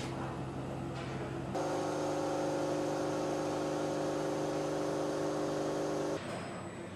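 Steady electric hum and whir of factory machinery. About one and a half seconds in it switches abruptly to a louder, higher hum of several steady tones, which cuts off suddenly near the end.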